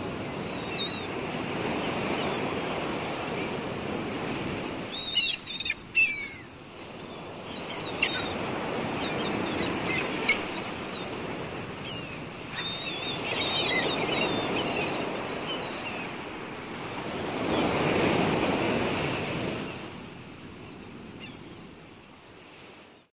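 Sea waves washing onto a shore, swelling and ebbing every few seconds, with short chirping bird calls in between, mostly in the middle. The sound fades out near the end.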